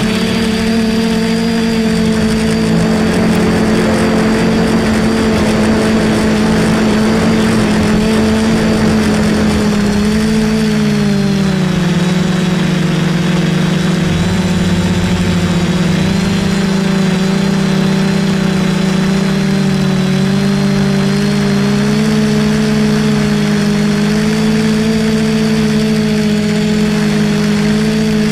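DJI F450 quadcopter's motors and propellers buzzing steadily, heard close up from a camera on the frame. The pitch dips about ten seconds in and rises back a little later as the throttle changes.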